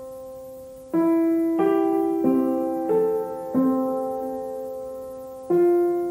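Background piano music: a slow, gentle tune of single notes and chords, each struck and left to ring and fade before the next.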